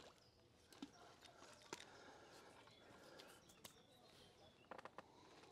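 Near silence broken by a few faint, scattered clicks and ticks, with a small cluster of them near the end.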